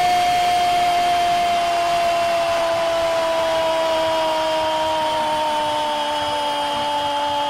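Football commentator's long drawn-out goal cry, one held note that sinks slowly in pitch, over the noise of the stadium crowd.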